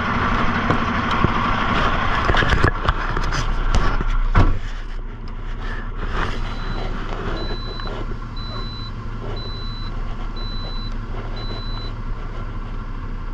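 A vehicle engine runs steadily, with clatter and several sharp knocks in the first few seconds. From about six seconds in, a backup alarm beeps six times, about once a second.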